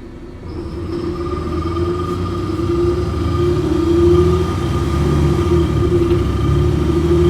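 Bus interior while driving: engine and drivetrain rumble with a steady whine, getting louder over the first few seconds as the bus gathers speed.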